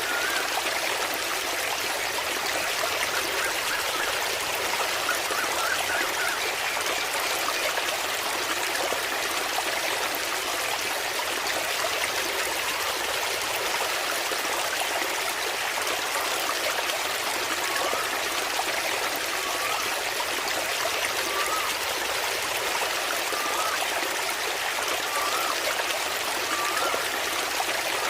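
Small waterfall splashing steadily, an even rush of falling water. In the second half a faint short chirp repeats every second or two.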